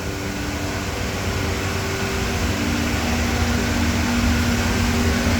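Vacuum pump of a CNC router's vacuum table running steadily, a continuous machine hum and rush that slowly grows a little louder.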